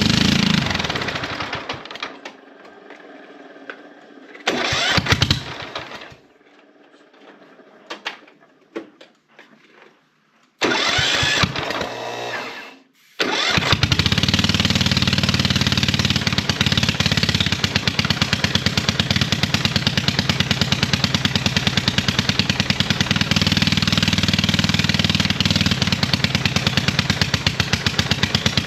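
Hard-starting ride-on lawn mower engine being started on ether: it runs briefly and dies, gives two short bursts a few seconds apart, then catches about halfway through and keeps running steadily with an even pulse.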